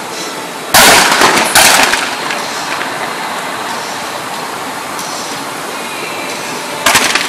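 Fireworks going off: two loud bangs about a second in, under a second apart, and another near the end, over a steady rushing hiss.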